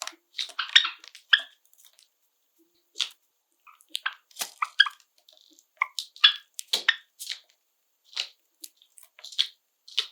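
Java sparrows making short, sharp chip calls and clicks, scattered irregularly and overlapping, with no song phrase.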